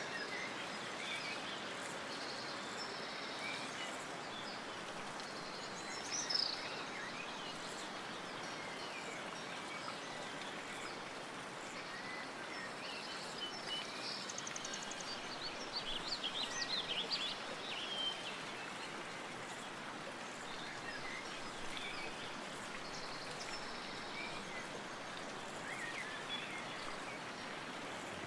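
Steady rushing hiss of wind with small birds chirping over it: a sharp rising chirp about six seconds in, a rapid twittering flurry around sixteen to eighteen seconds, and scattered faint calls elsewhere.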